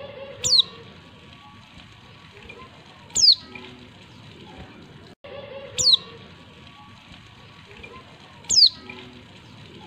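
Female white-eye (pleci) calling: four short, sharp notes, each sliding down in pitch, about every two and a half seconds. It is the call used to goad male white-eyes into singing.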